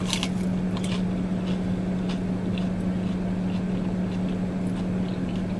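Steady hum of a car's running air conditioning inside the closed cabin, with faint clicks of someone chewing a pan-fried dumpling.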